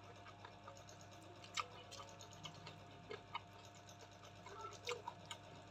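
Faint eating sounds of a person chewing and smacking: scattered soft clicks, a few a second, over a faint steady hum.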